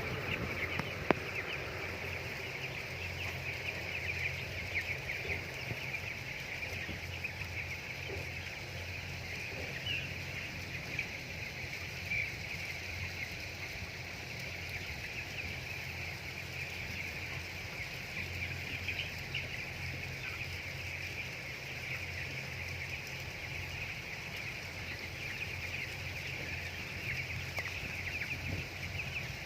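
A flock of broiler chickens calling together, a dense continuous chatter of many short high peeps, over a steady low hum. There is a single sharp click about a second in.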